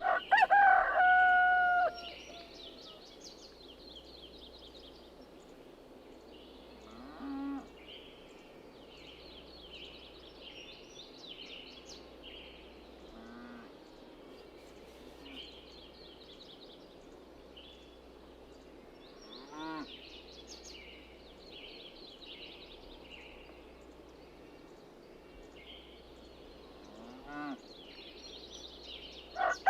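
A rooster crows loudly at the start, then a farmyard background of many small birds chirping, broken four times by short low calls from other farm animals.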